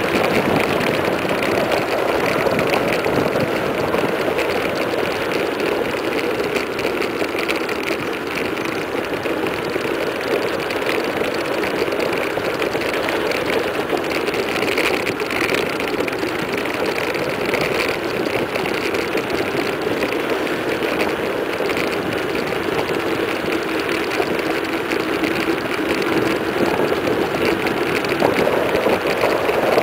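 Steady rush of wind over the microphone and mountain-bike tyres humming on asphalt during a fast downhill run.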